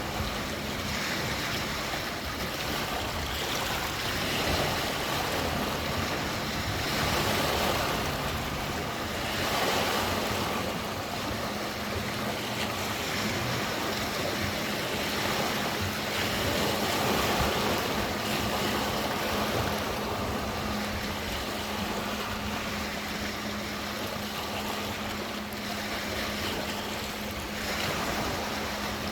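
Lake waves washing in: a continuous rush of water that swells every few seconds, with a faint steady low hum underneath.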